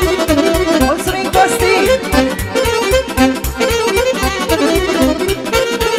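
Romanian party folk music: accordion and fiddle playing a melody over a fast, steady bass-and-drum beat.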